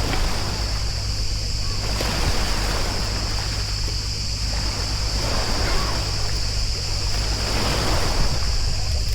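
Sea water lapping and splashing in irregular washes every second or two, over a low rumble of wind on the microphone and a steady high hiss.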